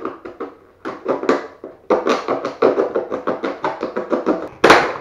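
A cardboard product box and its packaging being opened by hand: a quick, irregular run of crackling and rustling, several strokes a second, with one louder rip near the end.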